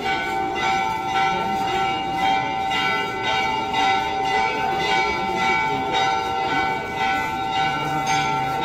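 Hindu temple bells rung continuously for the Ganga aarti, struck over and over a few times a second so their ringing tones never die away.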